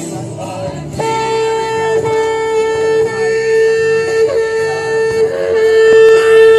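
A shofar blown in one long, steady held note starting about a second in, over background worship music.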